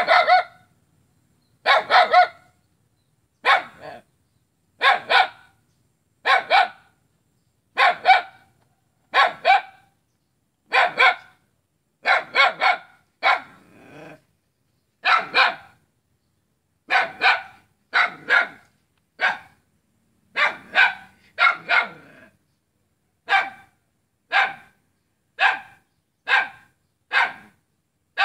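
Small dog barking repeatedly, about one bark every second or so, several coming in quick pairs, with short silences in between.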